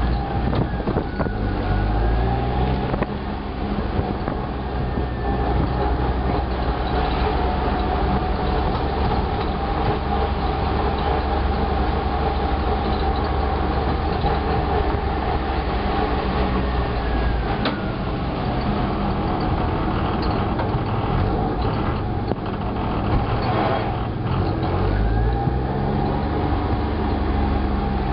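Small engine of a Cushman utility vehicle running under way, a steady drone whose pitch climbs as it speeds up shortly after the start and again near the end.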